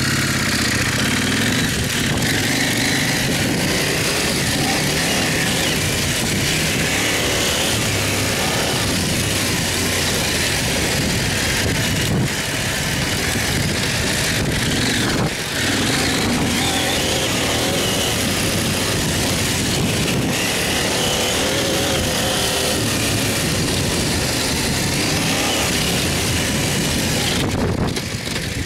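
Dual-sport motorcycle engine running steadily while riding a dirt trail, heard from the rider's helmet camera under a loud, steady rush of noise.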